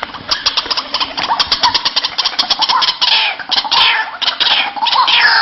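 White-breasted waterhen (ruak-ruak) calling: a fast run of harsh repeated notes, about seven a second, that slows after about three seconds into longer, falling notes.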